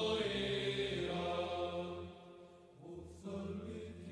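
Greek Orthodox Byzantine chant: long held sung notes that fade out about two seconds in and resume about a second later.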